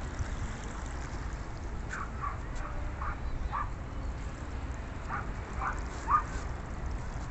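Wind rumbling on the microphone, with a run of about eight short animal calls from about two seconds in, the last one the loudest.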